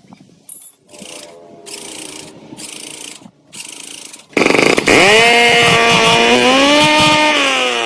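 A restored old engine stutters in a few short, uneven bursts, then catches about four seconds in and runs loudly. Its pitch rises and holds, then drops near the end.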